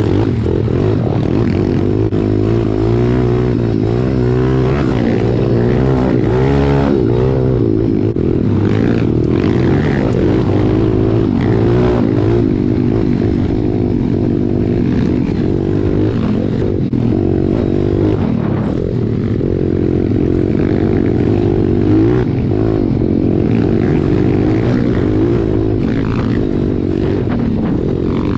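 Pit bike's single-cylinder four-stroke engine running close up while riding a dirt trail, its pitch rising and falling continuously as the rider works the throttle.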